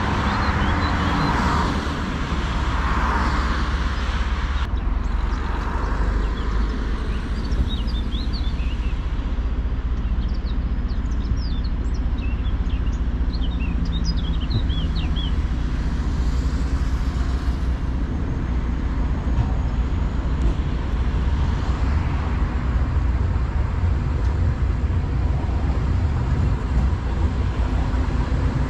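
Passenger train running along the track, heard from the driver's cab as a steady low rumble. A run of short high chirps comes through about a third of the way in.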